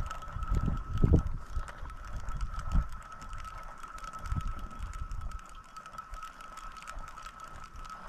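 Spinning reel being cranked to retrieve a lure: a dense run of fine gear clicks over a steady high whine, with irregular low thumps.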